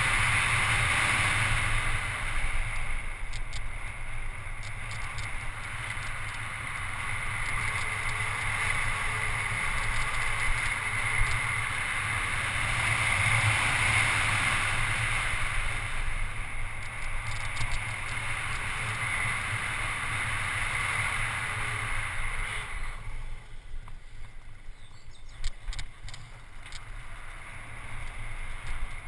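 Wind rushing over a GoPro and tyre noise on asphalt as a mountain bike descends a road at speed. About 23 seconds in the rush drops away, and a few clicks follow.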